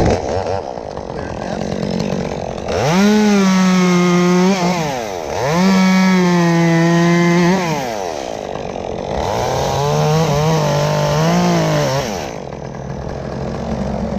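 Two-stroke chainsaw revved to full throttle three times in long bursts, sawing through the dead tree's top. Between bursts it drops back toward idle.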